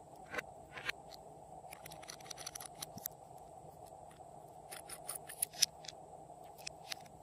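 Small, sharp clicks and taps of fingers and nails handling two ornate gold-coloured bottles and their caps, scattered irregularly and loudest a little after five seconds in, over a steady faint background hum.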